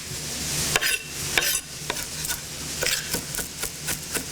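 Knife mincing fresh ginger on a cutting board in quick, irregular strokes, over the steady sizzle of red onion frying in a pan; the sizzle is loudest about the first second.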